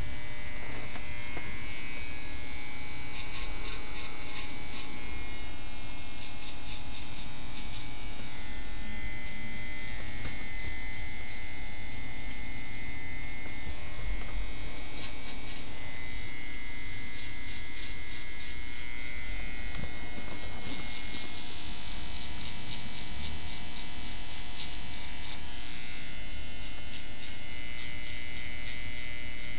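Corded electric hair trimmer running with a steady, even buzz as it cuts hair along the neckline and around the ear.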